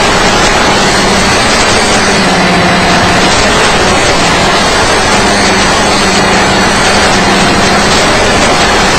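Loud, steady hiss of static from the audio channel of an analog FPV video receiver, with a faint hum underneath that wavers in pitch.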